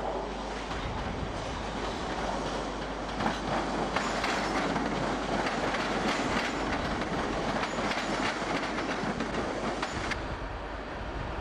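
Train coaches rolling past over the station throat's pointwork, with a steady rumble of wheels on rail and irregular clacks as the wheels cross the joints and points.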